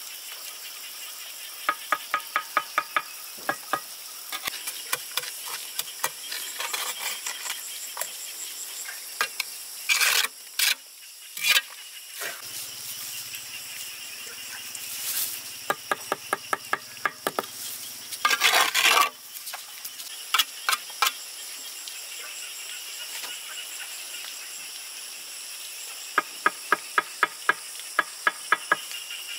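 Building work: three runs of quick sharp taps, about eight a second, and a few short scraping strokes, over a steady chirring of insects.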